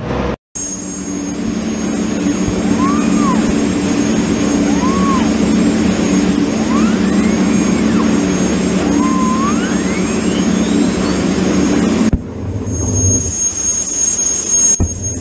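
A boat's engine running steadily under way, with a high thin whine over it. Several whistled notes rise and fall in pitch over the drone, and the last one sweeps up high. About twelve seconds in the sound changes abruptly to a thinner drone with the whine still there.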